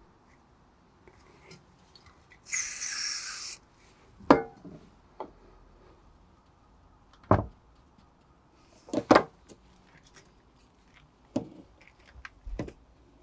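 Rubber O-ring and plastic coolant hose connector being worked onto a radiator's plastic end tank by hand: a hiss of silicone spray lasting about a second, then several sharp plastic knocks and clicks as the connector is pressed home and parts are handled.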